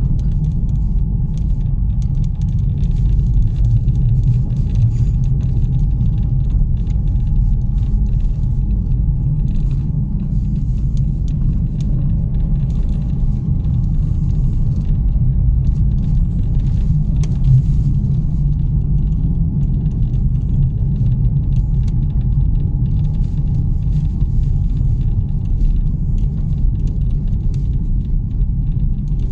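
Car driving along a road, heard from inside the cabin: a steady low rumble of engine and tyres, with a faint steady whine above it.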